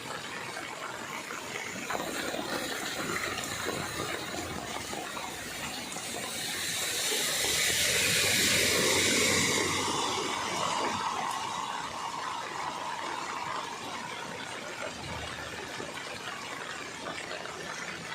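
Floodwater rushing steadily down a drain, a continuous hiss that swells louder for a few seconds around the middle and then eases back.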